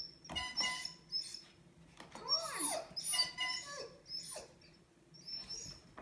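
Electronic beeps and jingles from a baby toy car's dashboard as a Doberman presses the buttons and horn with its nose, in about six short bursts. Mixed in are the dog's own cries, one of which rises and falls in pitch about two seconds in.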